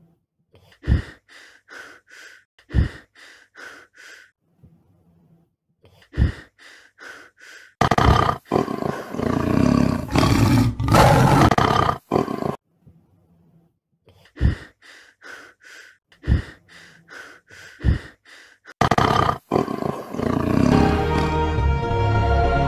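Tense film score of regular drum hits and short pulsing tones, broken twice by long, loud roars of a large tiger-like beast, about eight and nineteen seconds in. The music swells into a sustained theme near the end.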